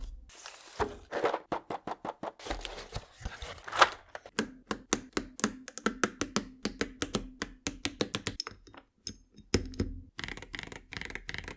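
Rapid, irregular keystrokes on a mechanical keyboard, several a second, with a couple of brief pauses near the end.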